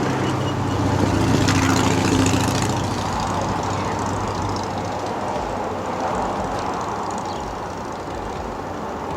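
Low engine hum of a vehicle that fades out over the first few seconds, over steady background noise.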